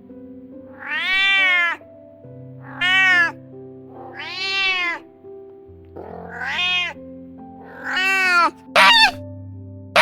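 Cat meowing repeatedly, about six separate meows, each rising then falling in pitch. The last couple are shorter and louder. Background music with steady held notes plays underneath.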